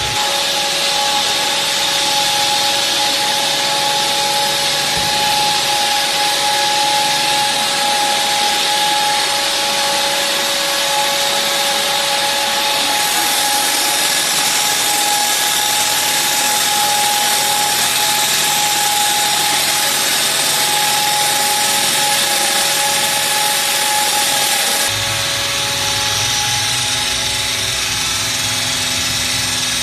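Hydraulic wall saw (HWS-800TM) running loud and steady, its diamond blade cutting concrete, with a high steady whine; about 25 seconds in the sound shifts and a deeper hum comes up.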